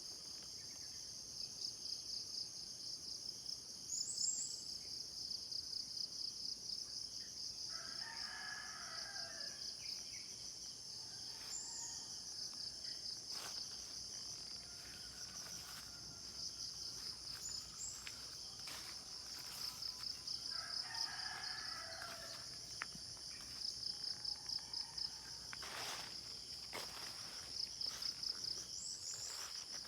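A steady, high pulsing trill of insects, with a rooster crowing twice, once about 8 seconds in and again about 20 seconds in. A few brief high bird chirps are scattered through.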